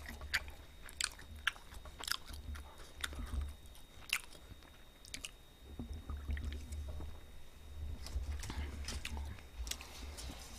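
A person drinking cola from a can: quiet gulps and small sharp mouth clicks, scattered irregularly.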